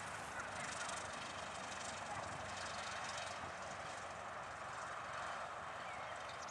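Cessna 172R's four-cylinder Lycoming engine and propeller running steadily at low power as the plane rolls along the runway after touchdown.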